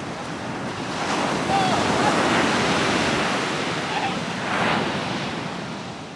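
Ocean surf breaking and washing up a sandy beach, with wind on the microphone. The wash swells about a second in, surges once more near the end, then fades away.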